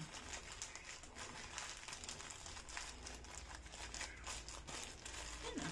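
Faint, irregular rustling and crinkling of a foldable reusable shopping bag being handled and pressed into its pouch.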